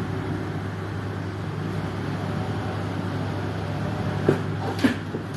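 Steady low background rumble, with two short sharp knocks about half a second apart near the end.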